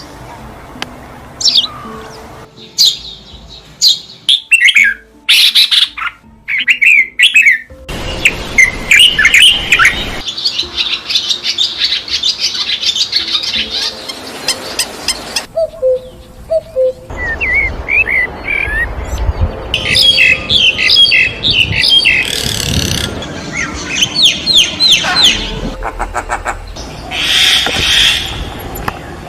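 Small birds chirping and calling: quick repeated chirps and short sweeping whistles, in a run of segments that change abruptly every few seconds.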